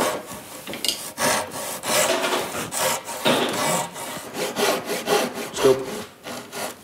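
Handsaw cutting Swiss stone pine by hand for dovetail joints, in quick, uneven back-and-forth strokes of the blade through the wood.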